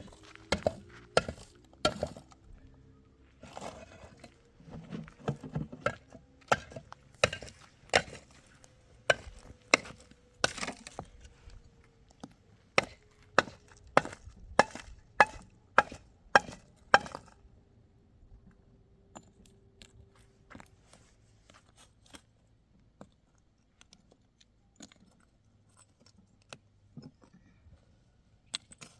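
Repeated sharp strikes on wood, in uneven runs and then at about one or two a second, stopping a little over halfway through, with only a few scattered faint knocks after.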